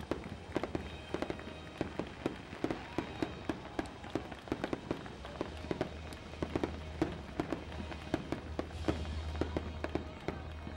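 Fireworks bursting and crackling: a rapid, irregular run of sharp pops, several a second.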